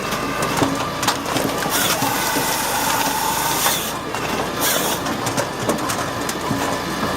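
Grinder Korea KS 40S firewood processor running: a steady machine drone with frequent knocks and cracks. A higher whine runs for a couple of seconds, starting about two seconds in.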